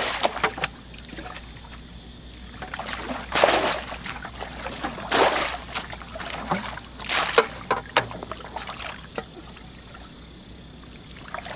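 Shallow muddy water splashing and sloshing as a black plastic bucket is tipped and pushed through it, with a splash every two seconds or so.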